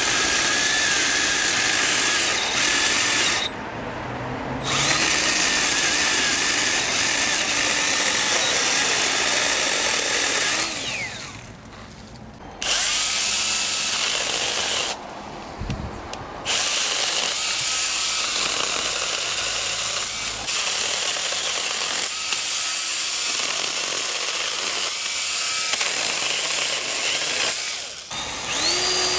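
Small 12-volt cordless pruning chainsaws, a Makita and a Milwaukee among them, whining at speed as their chains cut through branches and saplings. The cutting is broken by a few short pauses where the motor stops.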